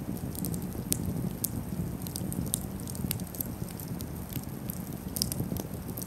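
Small open wood campfire burning on the ground, crackling with irregular sharp snaps and pops over a low steady rumble.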